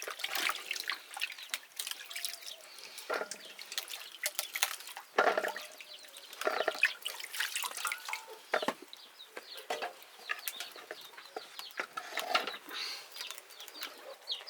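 Water splashing and sloshing in irregular bursts, with short knocks and clinks mixed in.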